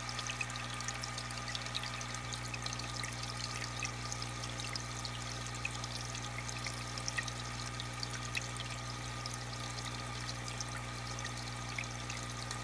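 Aquarium water pouring and trickling steadily, with many tiny splashes, over a steady low hum.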